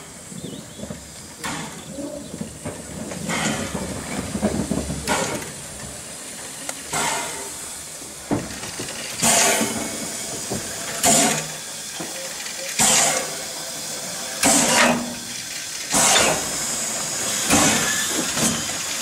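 Hunslet Austerity 0-6-0ST saddle-tank steam locomotive with its steam-driven Westinghouse air-brake pump panting: a sharp hiss of steam about every second and a half to two seconds, over a low rumble for the first few seconds.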